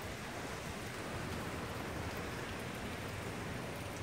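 Steady rain falling on the street and surroundings, an even hiss with no let-up.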